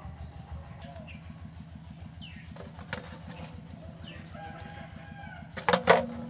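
A rooster crowing with chickens in the background. Near the end come two sharp knocks as duck eggs are set down in an aluminium basin.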